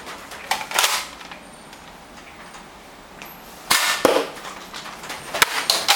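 Nerf blasters firing foam darts: short puffs of air, one about half a second in and a louder pair past the middle, with several sharp clicks toward the end.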